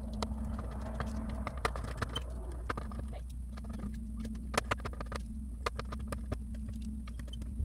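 Hand screwdriver driving a screw into a wooden cubby panel: irregular small clicks and scrapes as the screw is turned and the driver is repositioned, over a steady low hum.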